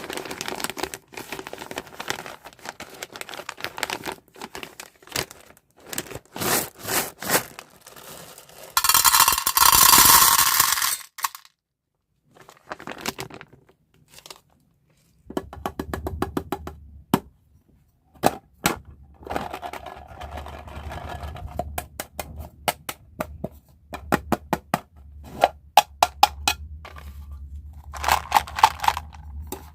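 Plastic candy wrappers and packaging being crinkled, torn open and handled, with many sharp clicks and taps of hard candies and small plastic pieces. A loud burst of rustling comes about nine seconds in, and a low hum sets in about halfway through.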